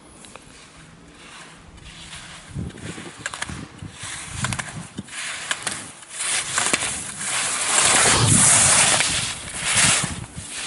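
Skis carving and scraping on snow through a slalom course, the hiss growing louder as the skier comes closer and loudest about eight to nine seconds in as she passes near. Sharp knocks are scattered through it as slalom gate poles are struck.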